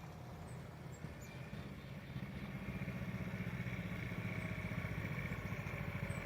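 Small go-kart engine running steadily, getting louder about two seconds in.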